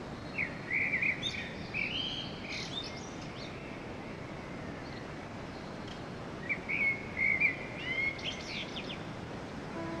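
A songbird singing two runs of quick chirping phrases, the first about half a second in and the second about six and a half seconds in, over steady background noise.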